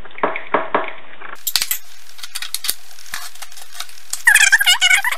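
Metal spoon scraping seeds out of a halved green papaya into a bowl, about four quick strokes a second. After a cut come light knife taps and scrapes on a cutting board, and a brief high-pitched squeal about four seconds in.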